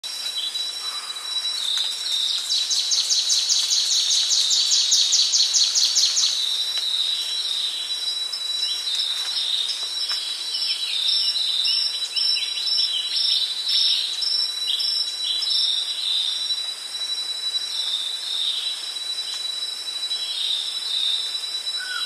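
Tropical rainforest ambience dominated by insects: a steady high insect whine, with one insect calling in loud rapid pulses from about two to six seconds in. Short falling chirps are scattered through the middle.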